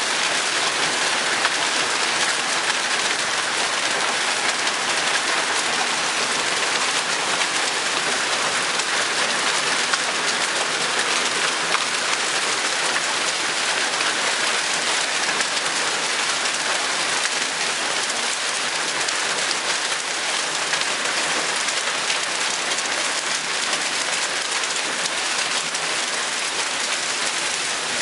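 Hail and heavy rain pelting pavement and lawns: a steady, dense hiss flecked with the fine ticks of hailstones striking.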